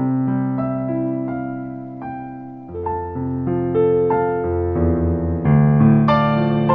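Background music played on piano or keyboard: held chords that change every second or so, growing fuller and louder about halfway through.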